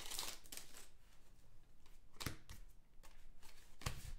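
Trading cards and an opened foil pack wrapper being handled: light rustling with a few brief clicks as the cards are slid and flicked through by hand.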